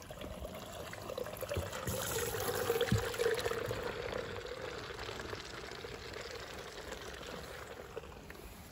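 Liquid pouring and splashing into the plastic tank of a tractor-mounted field sprayer as it is filled for herbicide spraying. The pour grows loudest about two to four seconds in, then eases to a steadier trickle.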